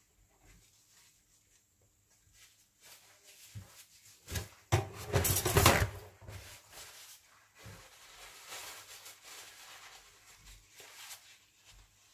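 Glass jam jars and lids being handled on a kitchen counter, giving a few light knocks, with one loud noise with a sudden start, about a second long, near the middle.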